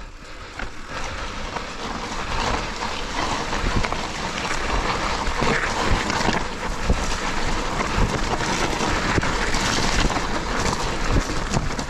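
Mountain bike descending a dirt trail: steady tyre and wind noise with a constant clatter of knocks and rattles from the bike over rough ground, and wind buffeting the microphone.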